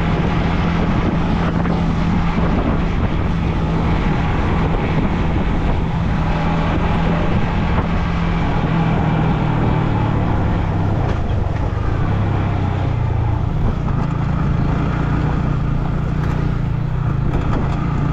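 Yamaha MT-15 motorcycle's single-cylinder engine running under way, with steady wind and road noise. The engine note drops about eleven seconds in and picks up again a few seconds later.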